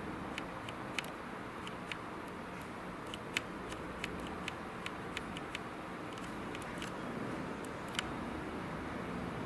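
Steady low background hum and hiss, with about a dozen faint, sharp clicks at irregular intervals.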